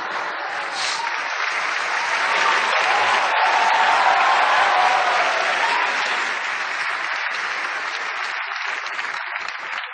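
A large audience clapping, swelling to its loudest about halfway through and then slowly dying away.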